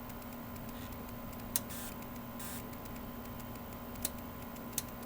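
Three sharp clicks of the oscilloscope's time-per-division rotary switch being stepped up from 1 s to 0.1 s per division, about one and a half seconds in, at four seconds, and near the end, over a steady low hum of the running bench equipment.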